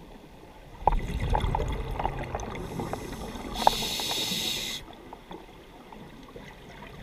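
Scuba diver breathing through a regulator underwater: a bubbling, gurgling exhalation starting about a second in, then a hissing inhalation a little before the four-second mark.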